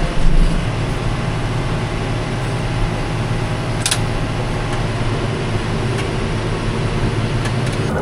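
Farm tractor engine running steadily with an even low hum, with one short sharp click about four seconds in.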